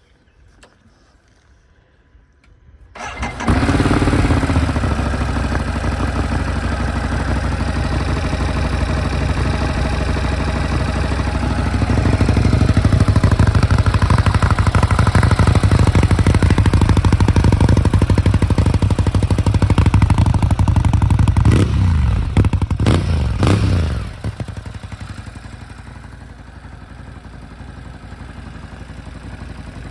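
Ducati Monster 821's stock-exhaust 821 cc Testastretta L-twin engine starting about three seconds in and settling into a steady idle. It runs louder at raised idle for several seconds, is blipped twice in quick rising-and-falling revs, then drops back to a quieter low idle.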